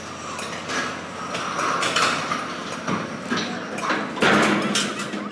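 Irregular metal knocks, clanks and scraping of heavy parts being worked on, with the loudest clatter about four seconds in.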